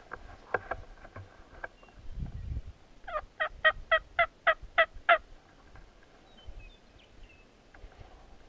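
Turkey yelping: a run of about nine evenly spaced yelps, roughly four a second, each dropping in pitch, about three seconds in. A few sharp clicks come before it.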